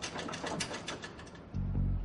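Film soundtrack music with a run of quick rattling clicks, then a loud deep low boom about one and a half seconds in.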